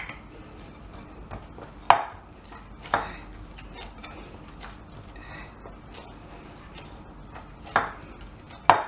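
Hands kneading oiled pizza dough in a glass bowl: faint handling clicks and a handful of sharp knocks against the glass bowl, spread unevenly, the loudest about two seconds in and near the end.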